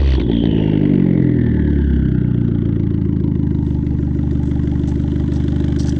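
2012 Fiat 500 Abarth's turbocharged 1.4-litre four-cylinder, exhausting through a sport cat and a straight pipe with no muffler, dropping back from a rev and settling into a steady idle about two seconds in.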